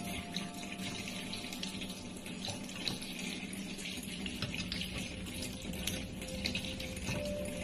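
A thin stream of water running from a kitchen faucet into a stainless-steel sink, a steady hiss with small irregular ticks. A cat laps at the stream.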